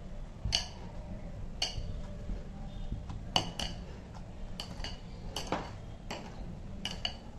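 Hand kneading flour dough in a glass bowl, with about a dozen light, irregular clinks against the glass as the bowl shifts and the hand's ring and bangles knock its rim.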